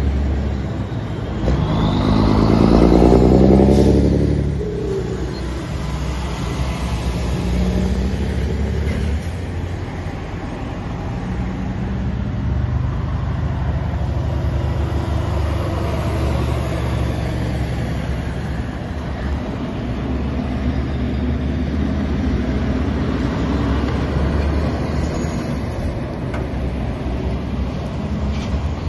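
Heavy diesel trucks passing one after another, engines pulling through the bend. The loudest pass comes about three seconds in, its engine note rising and then falling away, followed by a steady mix of further truck engines and tyre noise.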